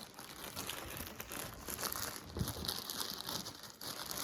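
Gift wrapping crinkling and rustling as a present is unwrapped, with a denser stretch of crackling a little past the middle.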